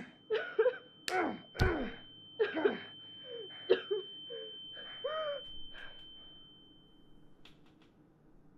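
A woman's gasping cries and groans amid a few sharp thuds, heard during a violent assault. Under them runs a steady high ringing tone that stops about seven seconds in. The cries die away after about six seconds.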